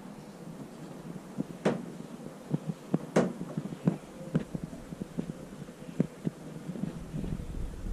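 Scattered light taps and clicks at irregular intervals, over a faint steady background, with two louder knocks about one and a half and three seconds in.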